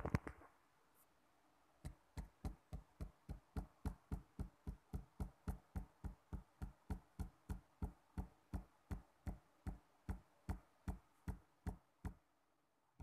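A fairly faint, rapid, even run of light knocks, about three to four a second, starting about two seconds in and stopping near the end.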